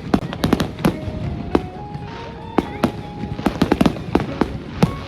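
Fireworks going off in a rapid, irregular series of sharp bangs and cracks, with music playing underneath.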